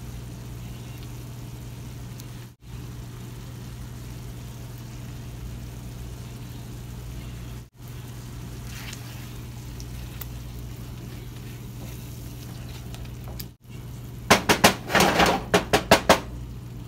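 A steady low mechanical hum, likely a kitchen appliance motor, broken by three brief dropouts. About fourteen seconds in, a quick run of about ten sharp clicks and knocks lasts roughly two seconds and is the loudest sound.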